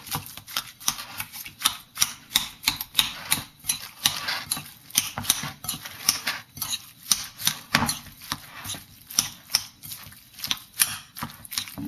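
A utensil clicking against a bowl in a quick, steady rhythm, about two to three strikes a second, as ground pork, chopped Chinese cabbage, ginger and egg are stirred together.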